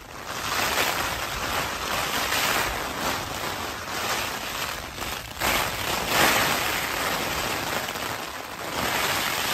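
Rain pattering on the fabric of a Tarptent Scarp 1 backpacking tent, heard from inside. It is a dense, steady hiss that swells and eases as gusts push the tent walls.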